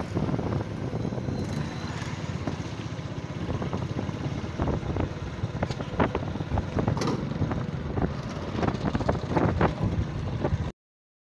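Wind rumbling on the microphone, with scattered bumps and knocks from the camera being carried along. It cuts off suddenly near the end.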